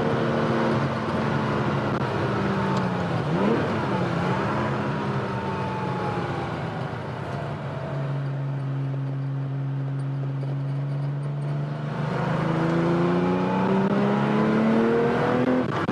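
1979 Porsche 911 SC's air-cooled 3.0-litre flat-six engine pulling hard on track: the revs dip and climb again about three seconds in, ease down and hold steady and a little quieter through the middle, then rise steadily under acceleration near the end.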